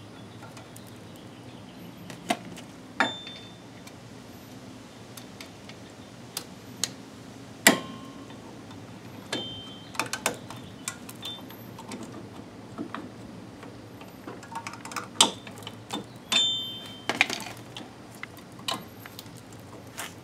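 Drum brake hold-down spring and retainer cup being worked onto the shoe's hold-down pin with a hold-down tool: scattered metal clicks and clinks, a few ringing briefly, the loudest about eight seconds in.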